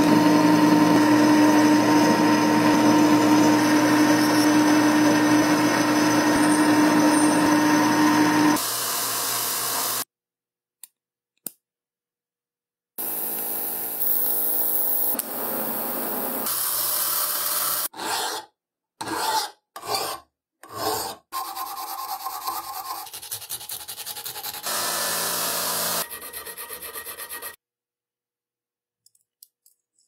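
Metal lathe spinning a stainless steel workpiece against a carbide cutting insert: a steady machine sound with two held tones, for about the first nine seconds. After a short gap with two clicks, a run of separate workshop sounds follows, including a TIG welding arc, several short bursts about half a second apart, and a few light clicks near the end.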